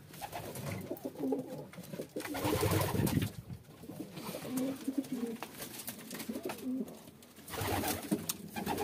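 Homing pigeons cooing, a series of low coos through the middle, with rustling in the nest straw as the squabs are handled.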